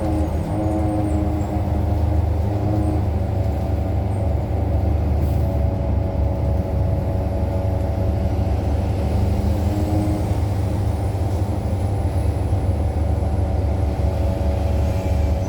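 2018 New Flyer XDE60 diesel-electric hybrid articulated bus under way: a steady low rumble with several sustained whining tones over it. This is the odd sound this particular bus makes compared with others of its type.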